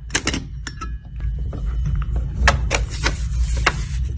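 Parts of a steampunk puzzle box being handled: scattered clicks and knocks with rubbing of the pieces, the rubbing denser in the second half.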